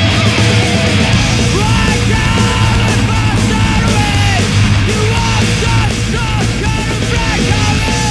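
Punk rock music with yelled vocals and distorted guitars, loud and steady.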